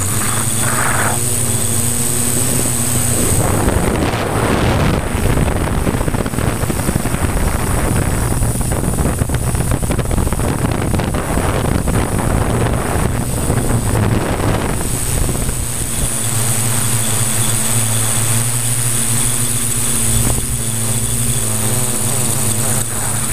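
Multirotor's electric motors and 15x5.5 propellers buzzing steadily, heard from the camera on the craft, with a high motor whine above the prop hum. From about three seconds in to about fifteen seconds a rough rush of wind on the microphone largely covers the motor tones, which then come through clearly again.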